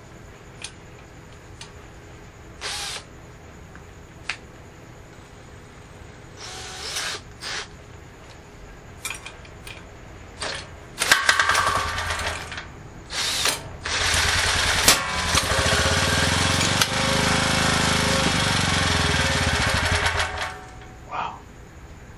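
Small portable generator engine, fed hydrogen-oxygen (HHO) gas from an electrolyzer, being pull-started with its recoil cord. Several short pulls turn it over, then about 14 seconds in it catches and runs for about six seconds before it stops.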